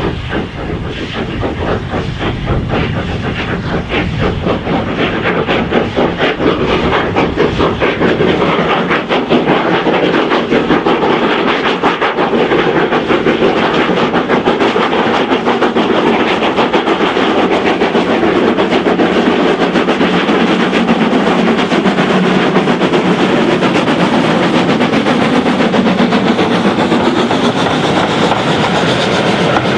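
Lancashire & Yorkshire 0-6-0 saddle tank steam locomotive hauling a passenger train past, its exhaust beating rapidly and evenly at first. The beats give way to the steady rumble of the coaches rolling by on the rails.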